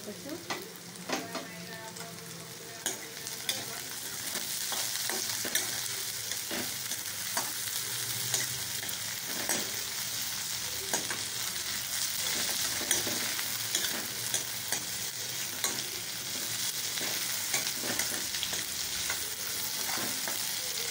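Sliced onion and green capsicum sizzling in hot oil in a metal kadai, stirred with a steel spoon that clicks and scrapes against the pan. The sizzle grows louder a few seconds in.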